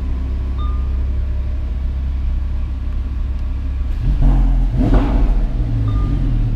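Lamborghini Huracan's 5.2-litre V10 idling steadily, then revved once about four seconds in: the revs climb sharply and fall back to idle within about two seconds. A short dashboard chime sounds once near the start and once near the end.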